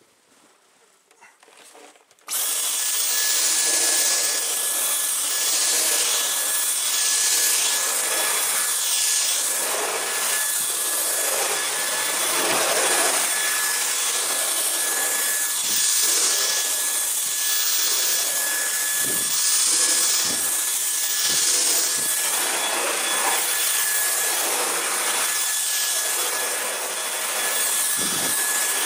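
Dyson V10 cordless stick vacuum switched on about two seconds in, then running with a steady high-pitched whine over a rush of air. The noise swells and fades every second or so as the floor head is pushed back and forth across a rug.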